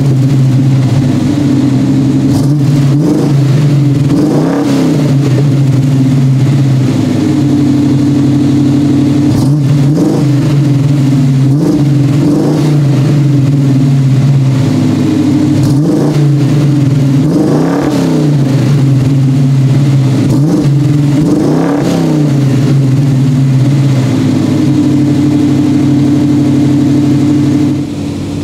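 The 1985 Monte Carlo SS's 305 H.O. V8 idles through its new Hooker Blackheart long-tube headers and 2.5-inch stainless exhaust. The throttle is blipped about eight times in short revs, each rising and falling back to idle.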